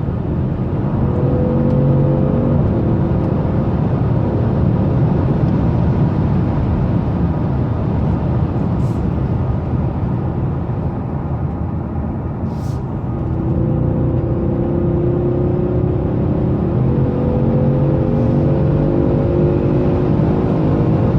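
Audi S6 accelerating hard at high speed. The engine note climbs slowly under a steady, loud rush of noise, with the rise clearest in the second half.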